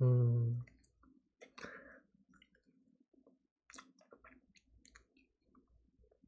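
A man chewing fried chicken: scattered soft clicks and smacks of chewing. It opens with a short hummed "mm" that is the loudest sound.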